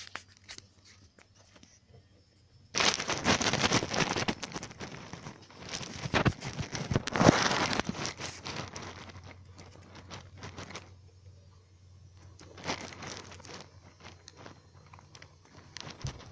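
Dry cage bedding of paper and wood shavings rustling and crinkling as it is disturbed. It starts suddenly about three seconds in and is loud for about five seconds, then thins to scattered soft crackles.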